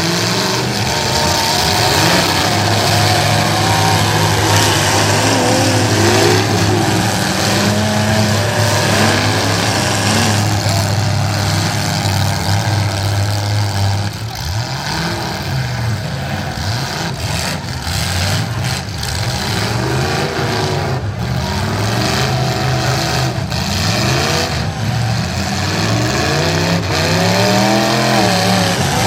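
Several demolition derby cars' engines revving. One holds a steady pitch for the first half, then several rise and fall in pitch as the cars accelerate and reverse. Sharp bangs of cars hitting each other come several times in the second half.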